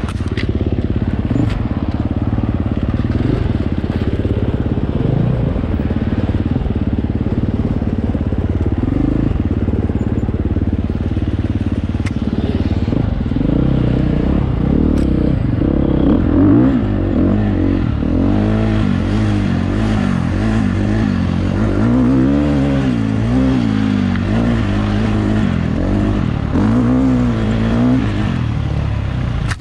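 Dirt bike engine running under load on a race course, revving up and down over and over, its pitch rising and falling most markedly in the second half.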